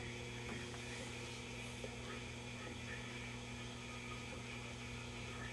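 Steady low mains hum from a powered-up tube tester while a vacuum tube warms up in its test socket, with one faint click at the start as the tube is seated.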